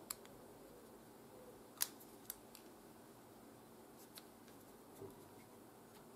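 Several short, sharp plastic clicks as a small action camera is handled and turned over in the hand; the loudest comes about two seconds in. Behind them is a faint steady hum.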